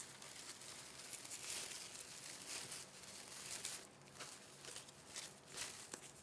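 Faint, uneven rustling and crinkling of fabric craft ribbons handled and gathered into a cluster by hand.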